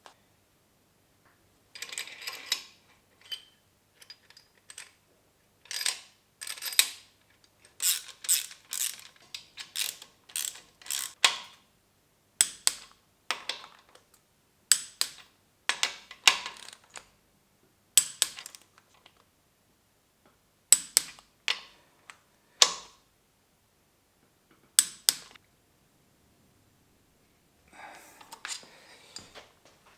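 Ratchet wrench clicking in short runs, with sharp metallic clinks, as the crankshaft main bearing cap bolts are tightened.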